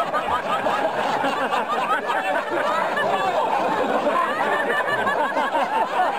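Large crowd laughing and talking at once, many voices overlapping without pause.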